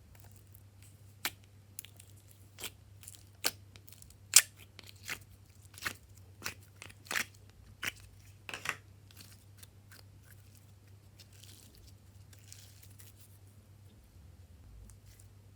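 Soft slime being pressed and squeezed by hand, giving a string of about a dozen sharp clicks and pops as air pockets burst, then a faint soft rustle. A steady low electrical hum runs underneath.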